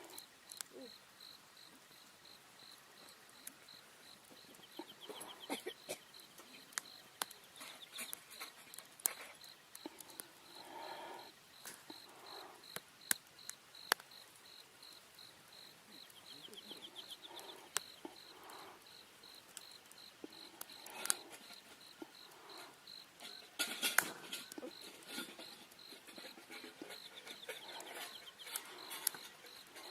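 A cricket chirping in a steady, evenly repeated high-pitched rhythm, with a couple of short trills. Scattered sharp clicks and knocks come through now and then.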